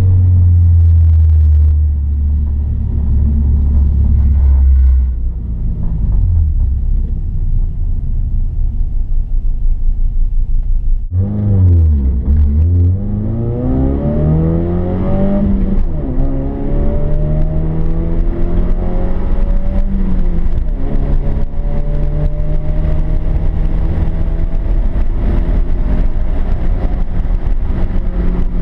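Subaru Impreza's flat-four engine heard from inside the cabin during track driving, at high revs at first. Partway through the pitch drops sharply and climbs again, then rises through the gears of the manual gearbox, falling back at each upshift.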